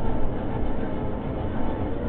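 Radio-controlled scale tow truck and towed RC buggy driving over a rough dirt track, heard up close: a steady rumble of the drivetrain with rattles and bumps from the chassis and tyres on the ground.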